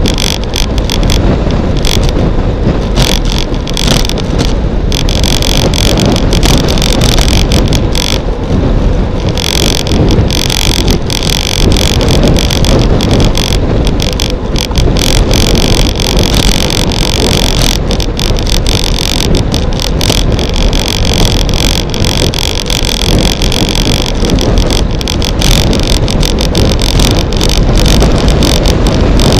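Loud, steady wind noise across a bicycle's on-board camera microphone at about 45 km/h, mixed with the rumble of the tyres on asphalt.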